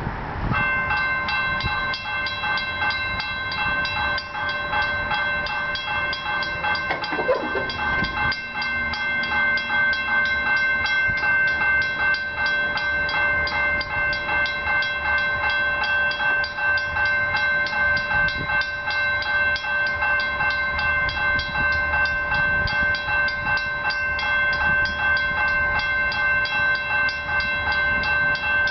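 Railway level-crossing warning bell starting up about half a second in and ringing on in a fast, even rhythm: the crossing signals set off by an approaching commuter train.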